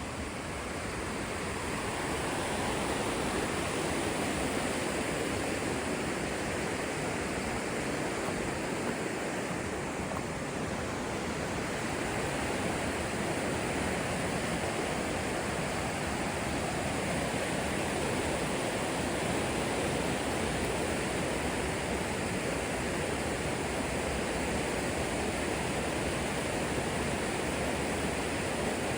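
River water rushing over rapids, a steady, even roar that grows slightly louder about two seconds in. The river is the North Fork Skokomish at Staircase Rapids.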